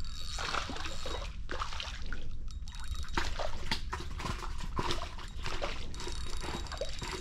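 A hooked fish splashing and thrashing at the surface of a pond as it is reeled in on a spinning rod, in a run of irregular splashes.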